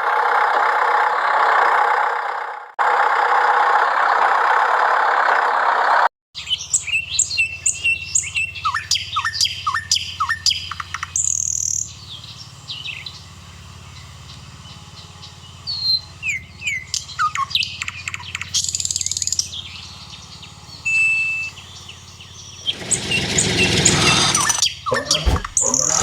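Small birds chirping and tweeting in many short, quick calls over a steady low hum. The birdsong is framed by a loud rushing hiss at the start, which cuts off abruptly about six seconds in, and another rush with clicks near the end.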